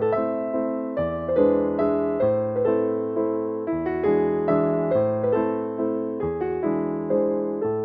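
Background music: a gentle piano tune with struck notes fading away and the bass changing every second or so.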